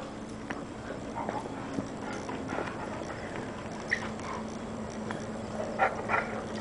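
Puppies scampering and play-fighting, their paws pattering on the floor, with a short yip about four seconds in and two more near the end.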